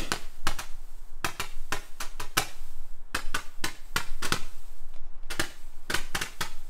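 Roman candle firing, a quick, irregular string of sharp pops, several a second, as it shoots out its stars.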